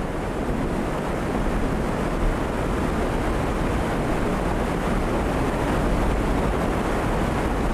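Abrasive water jet cutting steel under water: a steady, loud rushing roar with a deep rumble underneath.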